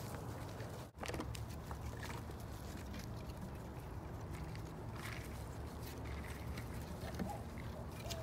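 Six-week-old puppies moving about on grass and dirt, giving faint scattered patter over a steady low rumble, with a short squeak near the end.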